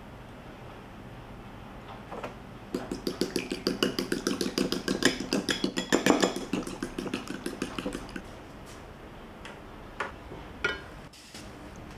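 Raw eggs beaten with a utensil in a ceramic bowl: a quick run of clinking strokes, about six a second, for some five seconds. Near the end a portable gas stove's ignition knob is turned, with two sharp clicks.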